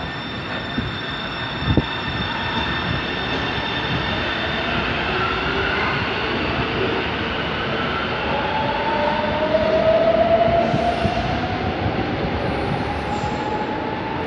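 São Paulo Metro fleet G electric train running, with steady rail noise and a whine that slowly rises in pitch through the second half as the train picks up speed.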